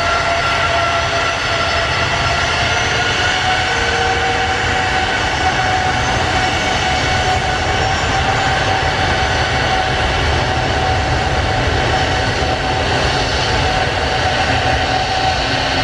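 Jet airliner engines running at high power, a steady loud whine that creeps slowly up in pitch over a deep rumble.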